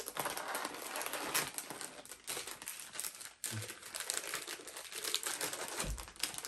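Plastic snack packets crinkling and rustling as they are pulled from a basket and handled.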